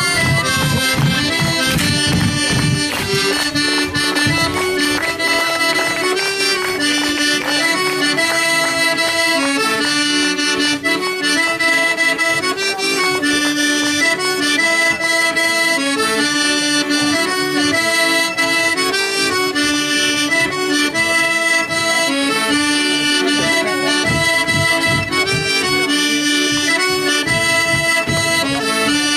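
Accordion playing a Slovak folk dance tune, held chords under a moving melody with a steady beat.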